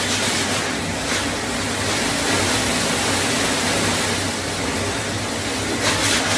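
Cyclone winds and driving rain: a loud, steady rushing noise of gusts through trees, with a stronger gust near the end.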